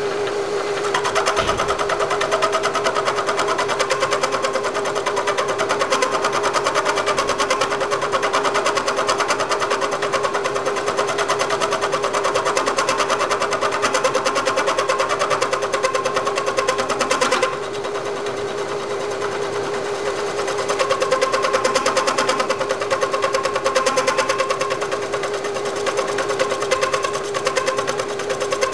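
Machine spindle running steadily while a home-made cutter, an exhaust valve with a cutting insert, machines a valve relief pocket into a forged aluminium piston, with a constant motor hum and a dense metal-cutting chatter. The cutting noise stops for a few seconds about two-thirds of the way in, leaving the motor, then resumes.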